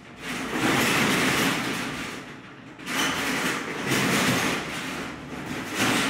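Corrugated metal roll-up shutter rattling as it is pushed up by hand, in three surges with short pauses between.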